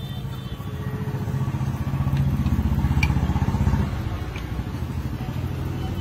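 A passing motor vehicle's engine, likely a motorcycle, grows louder over the first few seconds and drops away about four seconds in.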